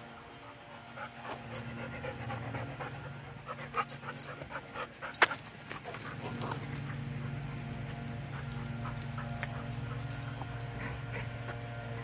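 Dog panting close by, with a few sharp clicks and knocks in the first half, over a steady low hum.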